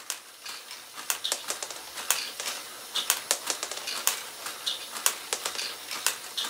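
LEGO Great Ball Contraption module running: small plastic balls rattle and click against the plastic parts as the mechanism moves them, with a sharp click about once a second.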